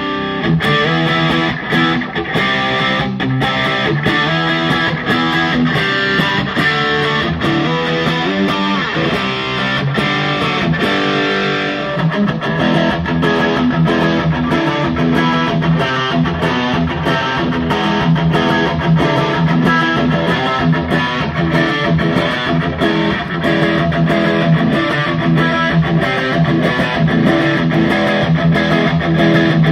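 SG-style electric guitar played through the Bad Cat Siamese Drive overdrive pedal into a Bad Cat combo amp, with sharply picked riffs and chords. It has a medium-gain crunch for about the first twelve seconds, then switches to a heavier, high-gain overdrive.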